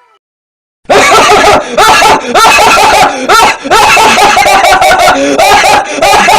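Loud, distorted meme laughter sound effect: a long run of rapid laughing cackles that starts about a second in.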